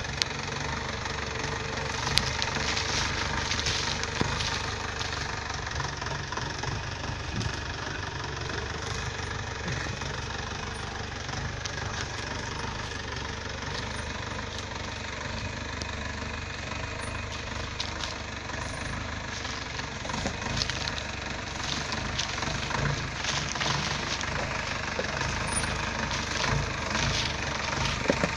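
Engine of a Mahindra 4x4 jeep running at low speed as it crawls down a rocky trail, getting a little louder as it nears toward the end. Scattered sharp knocks and crunches from the tyres going over stones.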